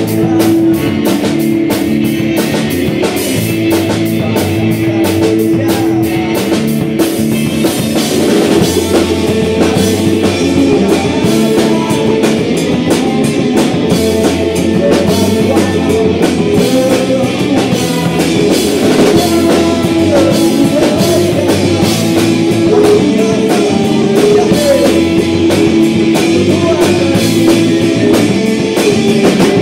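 A live rock band playing: electric guitar, bass guitar and a Yamaha drum kit, with singing.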